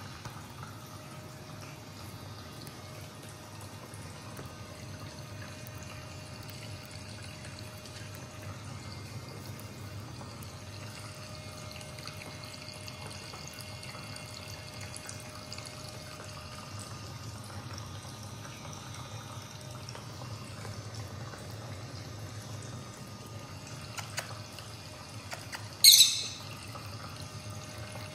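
Rosy-faced lovebird pecking at a millet spray, with a few faint ticks over a steady low hiss and hum. About two seconds before the end the bird gives one short, shrill chirp, much the loudest sound.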